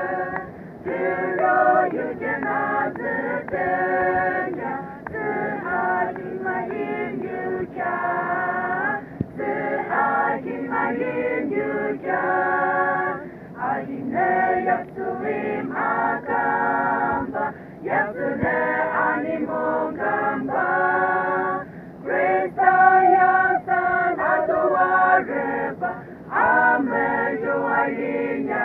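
A group of mostly women's voices, with a few men's, singing a song together unaccompanied, in phrases broken by short breaths.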